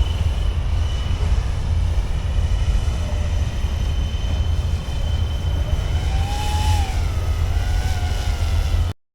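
A small RC helicopter tail propeller spinning on its electric motor: a steady high whine over a heavy low rumble, with tones that rise and fall as the speed changes. It cuts off abruptly near the end.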